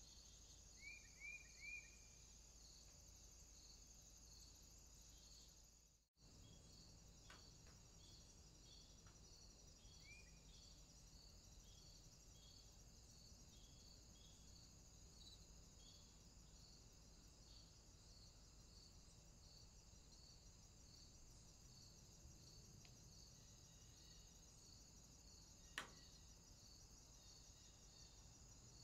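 Faint crickets chirping in a steady pulsing rhythm, about two chirps a second. A few short high chirps come about a second in, the sound drops out for a moment about six seconds in, and there is a single sharp click near the end.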